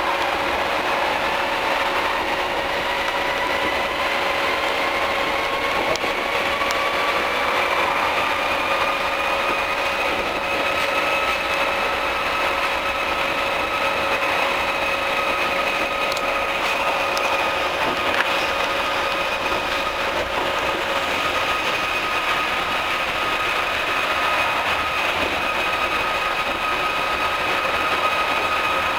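Osaka Monorail 2000 series train heard from inside the cabin as it accelerates away from a station: the traction motors whine with a pitch that rises for about the first ten seconds, then holds steady at running speed. Under the whine is the steady running noise of the train's rubber tyres on the track beam.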